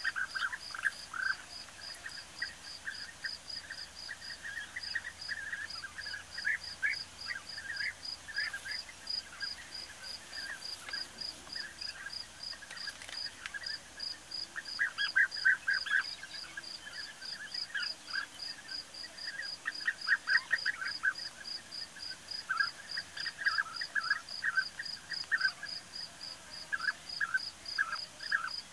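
European bee-eaters calling over and over, a flurry of short rolling calls in irregular clusters from several birds squabbling, with louder bursts around the middle and again about two-thirds in. A steady high-pitched pulsing, about three a second, runs underneath.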